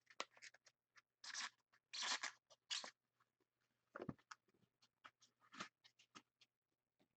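Faint handling of hockey trading cards, short scrapes and rustles as cards slide over one another, with a few longer swishes about one to three seconds in.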